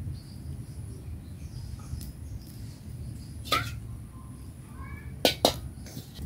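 Metal cookware clanking a few times as a steel wok and skimmer are handled and set on a wood-fired clay stove. The loudest clanks are a close pair near the end, over a low steady rumble.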